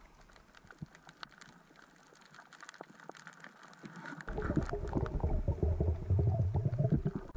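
Underwater reef sound with faint scattered clicks, then about four seconds in a much louder rumbling, crackling water noise as the diver moves.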